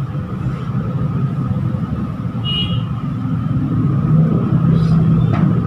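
Steady low rumble of background noise with a faint steady hum, and a short high tone about two and a half seconds in.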